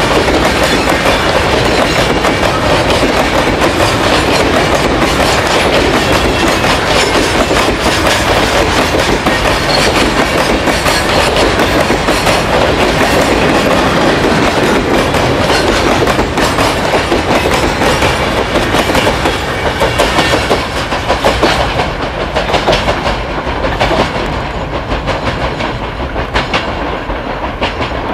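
Freight train of hopper wagons rolling past close by, a continuous clatter of steel wheels over the rail joints. About 20 seconds in, the sound becomes quieter and more uneven, with separate clacks standing out.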